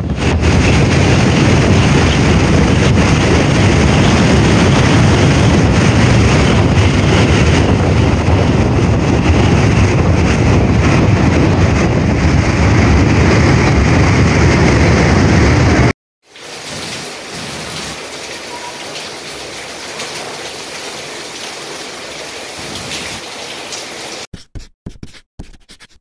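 Typhoon wind and driving rain, a loud, heavy rushing with wind buffeting the microphone. More than halfway through it cuts abruptly to a quieter, steady rush of rain and wind.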